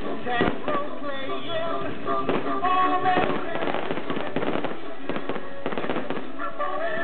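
Aerial fireworks bursting with many crackles and bangs, over music.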